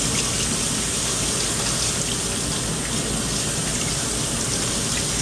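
Kitchen faucet running hot water steadily into a stainless steel sink, splashing over hands being rinsed under the stream.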